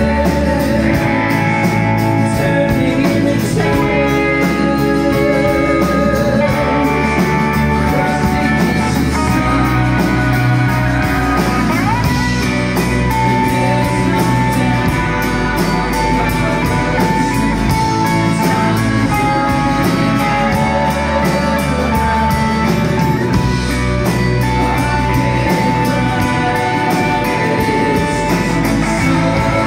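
Live rock band playing: male lead vocal over strummed acoustic guitar, electric guitar, bass and drums.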